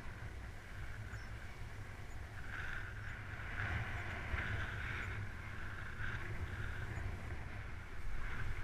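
Fat bike riding along a path: a steady low rumble of wind on the microphone under a rushing tyre noise that swells and fades.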